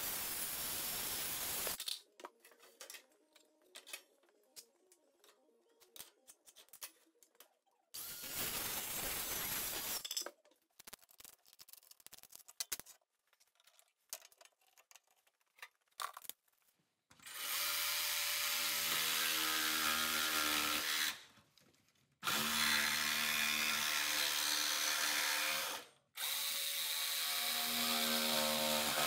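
Battery-powered circular saw and jigsaw cutting plywood in five separate runs of two to four seconds each, with quiet knocks and handling in the gaps.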